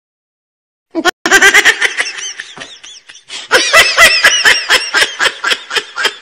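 A person laughing in two runs of quick 'ha-ha' pulses, about four or five a second. The laughter starts about a second in, breaks off briefly, then comes back louder and longer.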